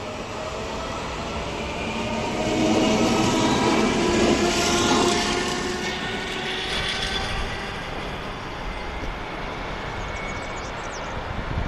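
SBB RBDe 560 'Domino' electric multiple-unit train pulling away, its traction drive whine rising in pitch as it accelerates. The sound is loudest a few seconds in, then fades as the train moves off.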